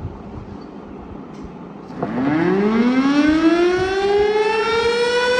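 Motor-driven siren starting up about two seconds in, its pitch rising steadily as it winds up. It is the siren that signals iftar, the time to break the Ramadan fast.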